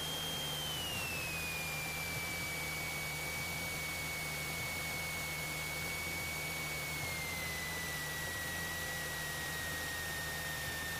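Cessna 172SP cockpit noise heard through the headset intercom: a steady hiss with a thin high whine from its Lycoming engine that drops in pitch about a second in and again around seven seconds in, as the engine's revs come down on landing.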